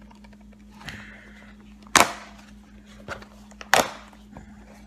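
Blade cutting into an American football's rubber and leather casing: two sharp snaps about two seconds apart, each with a short noisy tail and a fainter sound shortly before it, over a steady low hum.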